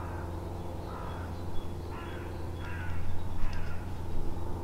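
A bird calling: a run of about five short, harsh calls roughly a second apart, over a steady low hum.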